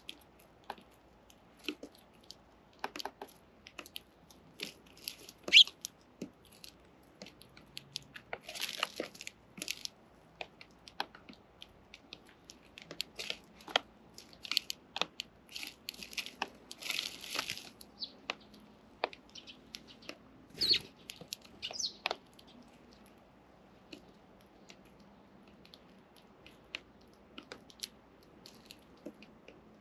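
Young house sparrows pecking and cracking seed close to the microphone: irregular sharp ticks and crunches, thickest through the middle and thinning out near the end.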